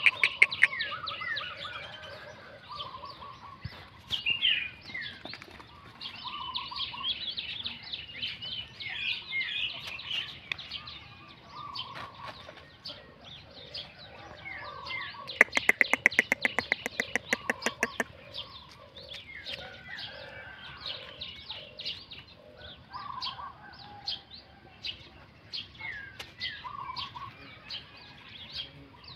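Birds chirping and calling continuously: many short, high, downward-sweeping chirps overlapping, with lower notes repeated every second or two. About halfway through, a rapid, even rattle of clicks lasts about three seconds.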